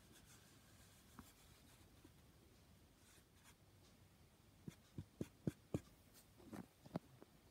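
Quiet room tone, then, from about two-thirds of the way in, a quick run of small sharp clicks and knocks, roughly four a second, as a hand turns a small plastic bell-jar night light around on its base.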